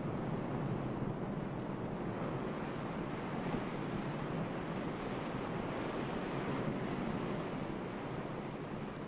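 A steady rushing noise with no pitched sounds, heaviest in the low-middle range, easing off slightly near the end.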